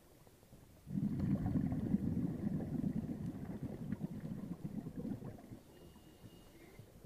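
Scuba diver exhaling through a regulator underwater: a burst of bubbling rumble starts suddenly about a second in, stays strong for about four seconds, then fades.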